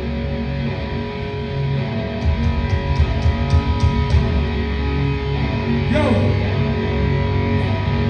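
A rock band playing live: electric guitars ringing over bass, with a run of drum hits in the middle.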